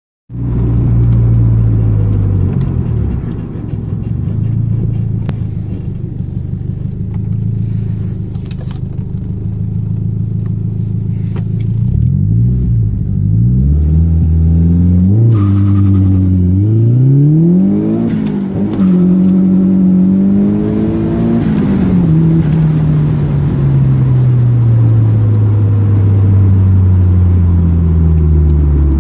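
Nissan Silvia's turbocharged SR20DET 2.0-litre four-cylinder engine, heard from inside the cabin. It holds steady at cruising revs at first. About halfway through, the engine note rises and falls several times, then drops slowly as the car eases off near the end.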